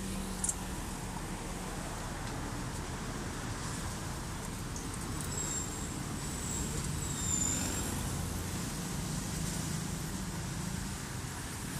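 Road traffic with a steady low engine hum, swelling as a vehicle passes about seven seconds in, with a brief high squeal around then. A sharp clink about half a second in.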